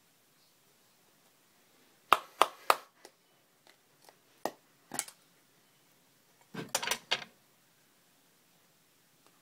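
Sharp knocks and clicks of hard objects being handled: three quick ones about two seconds in, a few lighter ones, then a rattling cluster near seven seconds.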